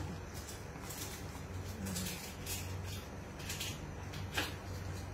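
Wooden spatula stirring chicken balls in a pan of simmering water, giving irregular soft scrapes and clicks against the pan, over a steady low hum.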